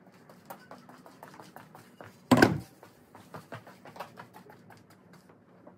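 A single loud, heavy thump about two seconds in, amid a string of light clicks and taps.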